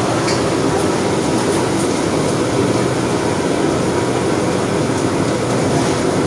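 Steady roar of a restaurant wok station: the gas wok burner and the extractor hood running flat out. A few faint clinks of the ladle against the carbon-steel wok.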